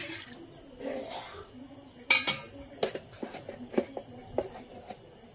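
Metal ladle clanking against the rim of an aluminium kadai filled with dal and coconut milk: one sharp clank about two seconds in, then several lighter knocks.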